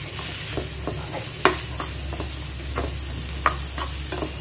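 Chopped mango pickle being mixed by hand in an aluminium pan: irregular soft taps and clicks of the pieces and fingers against the pan, over a steady hiss.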